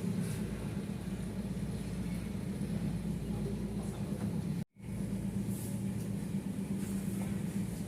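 A steady, low machine hum that drops out completely for a split second a little past halfway.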